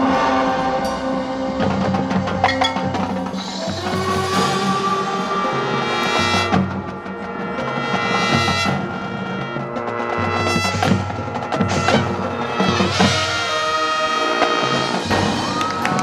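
Marching band playing: brass holding chords over percussion strikes, with sharp hits scattered through.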